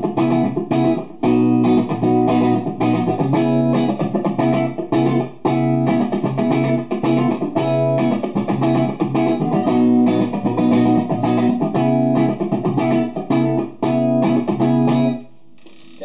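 Gibson Les Paul '54 reissue goldtop, played amplified on its neck P90 pickup: a rock passage of picked chords and single notes that stops about fifteen seconds in.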